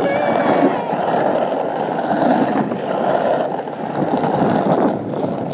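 Skateboard wheels rolling over rough asphalt, a steady grinding rumble.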